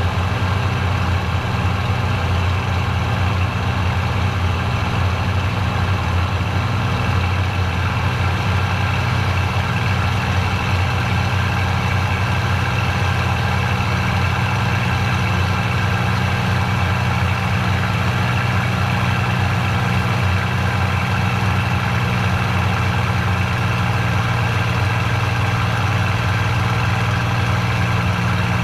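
P-51 Mustang's V-12 piston engine running steadily in flight, heard from inside the cockpit as a constant, even drone that does not change.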